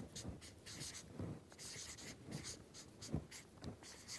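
Felt-tip marker writing on flip chart paper: a faint, irregular run of short scratchy strokes.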